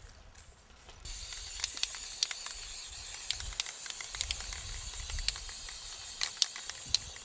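Aerosol can of spray varnish hissing in one long steady spray, starting about a second in and cutting off just before the end, with a few small ticks.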